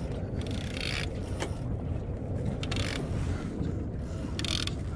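Boat engine running steadily in gear at slow trolling speed, a continuous low rumble, with three short bursts of hiss over it.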